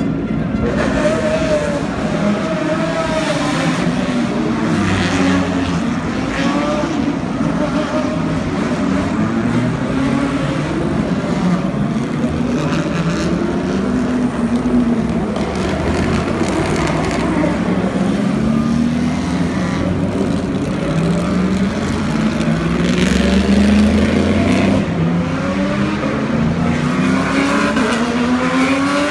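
A stream of endurance race cars, GT cars among them, driving past one after another at parade-lap pace, their engine notes rising and falling in pitch as each car goes by.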